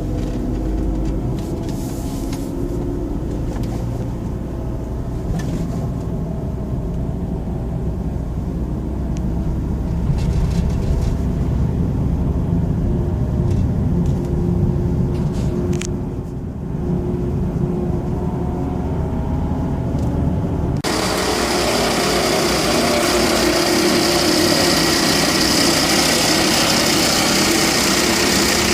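Volvo XC60 2.4-litre D5 five-cylinder diesel engine running, with the rattling noise of a worn alternator pulley bearing. About three-quarters of the way through, the sound abruptly becomes louder and hissier, with a steady high whine.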